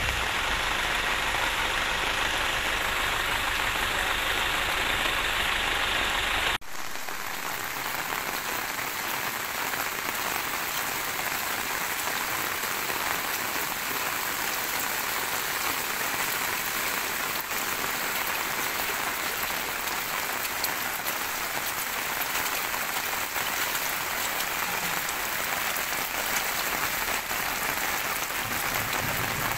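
Heavy rain falling steadily on a flooded road. For the first six or so seconds a louder, denser noise with a low rumble sits under it, which cuts off abruptly, leaving the rain alone.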